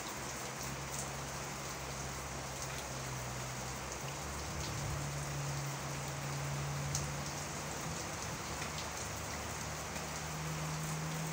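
Steady rain falling, an even hiss with faint drop ticks. Under it runs a low, steady hum that steps up slightly in pitch about four seconds in.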